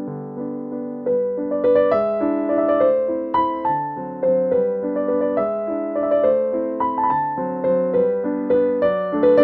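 Background music played on piano: a melody of struck notes over chords.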